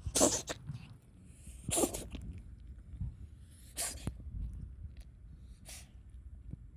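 A cat's asthmatic coughing: four short, sneeze-like expulsions of breath about two seconds apart, the first two loudest. It is the odd sneeze-cough of feline asthma, with the cat seeming to retch without bringing anything up.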